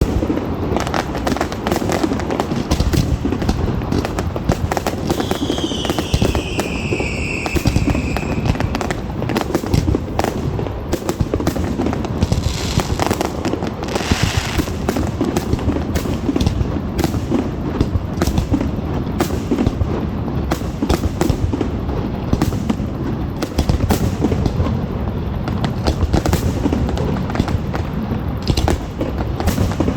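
Fireworks going off in quick succession: a dense run of booms and crackling bangs. A whistle falls in pitch from about five to eight seconds in, and there is a hissing burst around thirteen to fifteen seconds.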